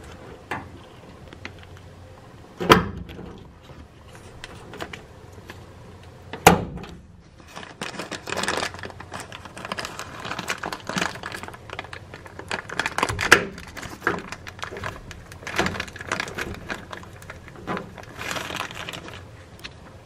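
Handling noises from wiring being fitted into a washing machine's frame: two sharp knocks a few seconds apart, then a long stretch of plastic bag crinkling and rustling with small clicks.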